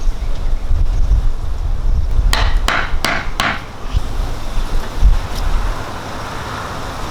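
Four quick hammer-like knocks on wood, about a third of a second apart, over a steady low wind rumble on the microphone.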